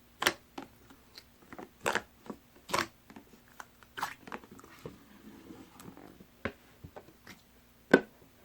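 A large batch of white glue slime being squeezed and pressed by hand. It gives off irregular sticky clicks and pops, with a brief soft crackle in the middle and the sharpest pop near the end.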